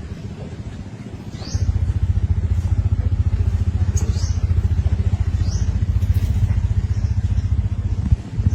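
A small engine running steadily, a dense low pulsing rumble that swells in about a second and a half in and dips briefly near the end, with short high rising chirps about every second and a half.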